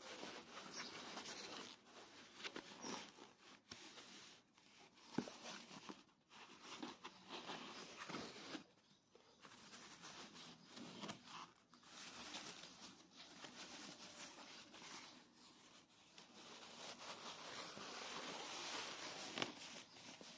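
Faint rustling and scraping of thin foam packing sheets as hands pull them off a guitar in a cardboard box, with a couple of sharp taps.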